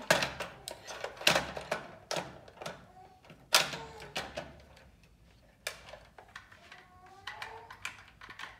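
Hard plastic toy fire truck being handled and knocked against a wooden tabletop: a series of sharp clacks and clicks at uneven intervals, the loudest near the start, about a second in and about three and a half seconds in.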